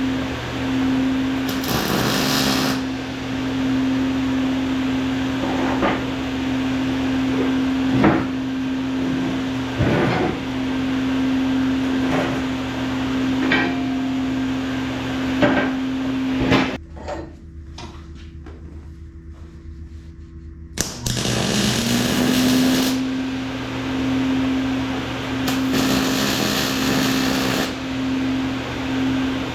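Steady electric motor hum in a metal shop, with scattered sharp metal clinks and knocks. About two-thirds of the way through the hum cuts out for about four seconds, then the motor spins back up, with a few bursts of hissing noise.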